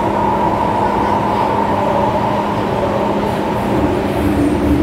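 MTR M-Train running, heard from inside the carriage: a steady rumble of wheels and car body with a constant hum. A lower tone joins in near the end.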